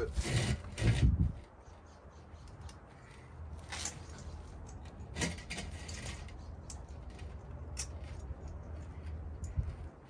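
Scattered small metallic clicks and taps as a brake pad retaining clip is worked into place on a front brake caliper, over a low steady rumble. A heavier thump comes about a second in.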